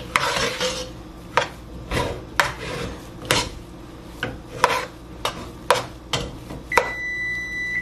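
A spoon stirring and scraping cheesy diced potatoes in a pot, with repeated sharp knocks of the spoon against the pot. Near the end an electronic beep sounds steadily for about a second: the oven signalling that it has finished preheating.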